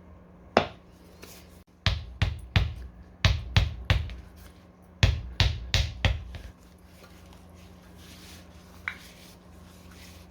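Sharp knocks or taps: a single one, then three quick runs of about four each, over a steady low hum.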